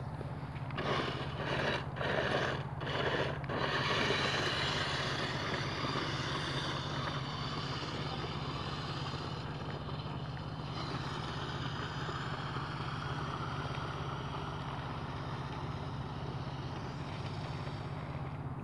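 Electric motor of a New Bright 1:8 RC Wrangler whining as the truck is driven over snow, in several short throttle bursts during the first few seconds and then a steadier whir, over a constant low hum.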